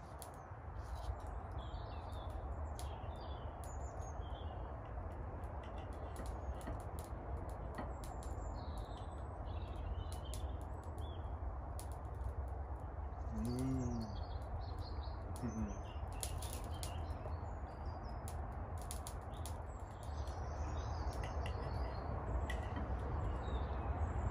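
Outdoor ambience: small birds chirping on and off over a steady low rumble, with scattered sharp clicks and a short low hum about halfway through.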